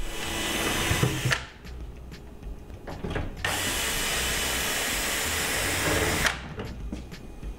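DeWalt 12-volt cordless drill driving out the microwave's top mounting bolts: a short run first, then a steady run of about three seconds.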